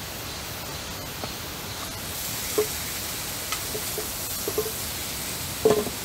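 Meat sizzling in a cast-iron frying pan, a steady hiss that grows a little louder about two seconds in, with a few faint clicks.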